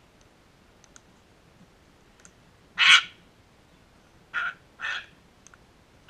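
Sulphur-crested cockatoos: one loud squawk about three seconds in, then two shorter squawks close together a second and a half later, over faint scattered clicking as the birds peck at the ground.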